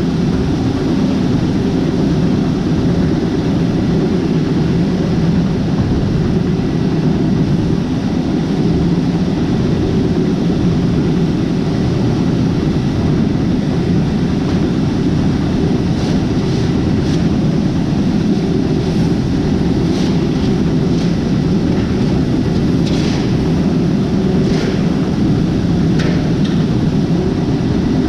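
A vehicle engine running with a steady, loud rumble, with a few short clicks and ticks in the second half.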